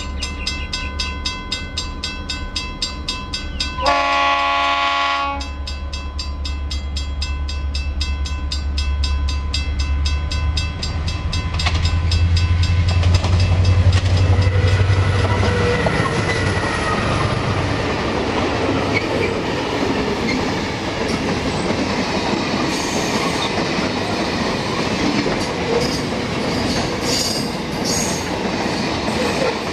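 Freight train hauled by several diesel-electric locomotives led by AN class AN1. A steady engine drone comes in as the train approaches, with a horn blast about four seconds in lasting just over a second. The engines then swell louder as they pass, followed by wagon wheels clicking over rail joints near the end.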